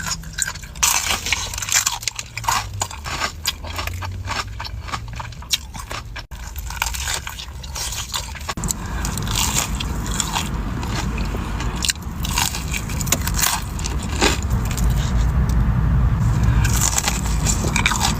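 Chicken being bitten and chewed close to the microphone, with many sharp, irregular crunches. About halfway through, a low rumble comes in under the chewing and grows louder near the end.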